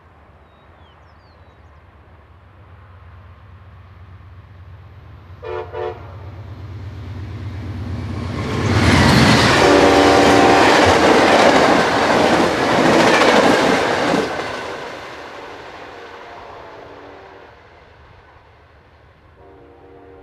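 VIA Rail passenger train hauled by a GE P42DC diesel locomotive approaching at speed and sounding two short horn toots about five and a half seconds in. It then passes close by in a loud rush and rattle of wheels and cars, the horn held for a couple of seconds as the locomotive goes by, and fades as the train pulls away, with a fainter horn sounding again near the end.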